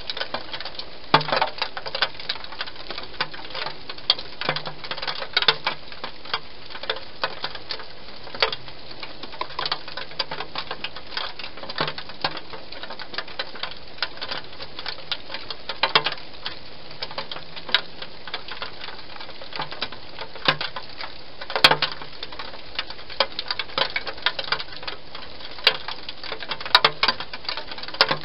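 Wild hedgehog eating, crunching and smacking on food in a quick, irregular stream of clicks, with a few louder crunches.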